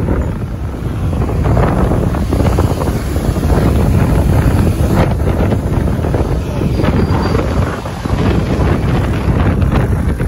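Wind buffeting the microphone: a loud, uneven low rumble that swells and dips.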